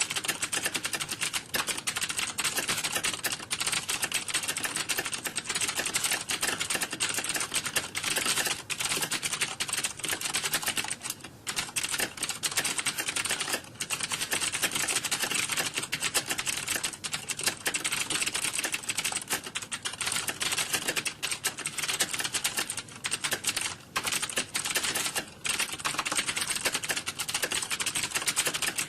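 Computer keyboard typing: a rapid, continuous clatter of key clicks with a few brief lulls.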